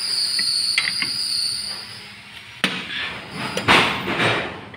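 Steel hand tools worked against a brake hub and wheel studs: a sharp metal clank about two and a half seconds in, then a louder rattle of wrenches about a second later. A steady high-pitched whine runs through the first second and a half.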